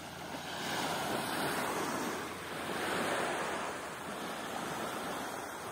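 Water washing at the shore in slow swells, mixed with wind rushing on the microphone.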